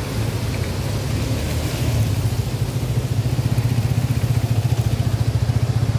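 A motorcycle engine idling close by, a low, evenly pulsing chug that grows stronger about two seconds in, over the steady rush of floodwater pouring out of the dam's outlet gates.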